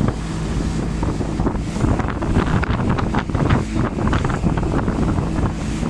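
Motorboat running at speed, its engine a steady low hum under heavy wind buffeting the microphone, with water splashing against the boat.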